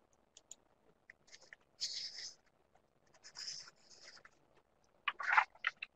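Faint rustling hiss close to a microphone, twice, each about half a second long, then a few soft clicks near the end.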